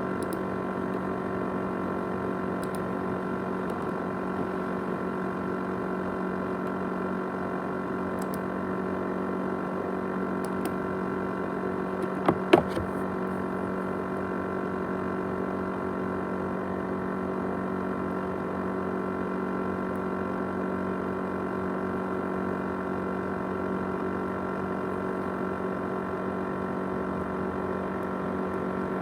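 ASUS X543UA laptop with its 500GB hard drive running, giving a steady mechanical whirring hum with several pitches layered together. The noise is the rattling, jet-engine-like sound the drive and laptop are known for. A few sharp clicks come about twelve seconds in.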